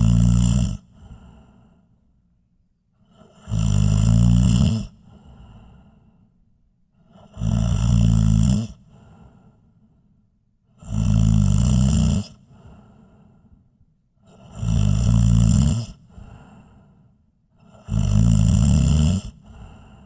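A person snoring: six loud snores in a steady rhythm, one about every three and a half seconds, each lasting over a second and followed by a quieter trailing breath.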